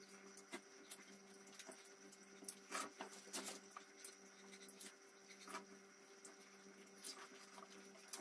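Faint wet biting and chewing of juicy watermelon, with irregular soft smacks and clicks, over a low steady hum.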